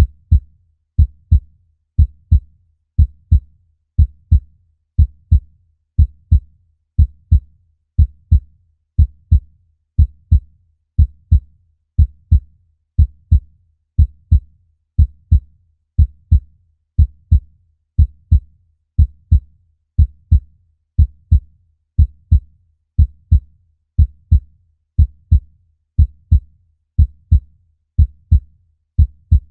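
Human heartbeat, a steady lub-dub: two low thumps close together, repeating about once a second.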